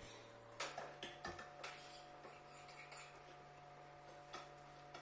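Faint, scattered small clicks and taps, a few seconds apart, over a low steady hum.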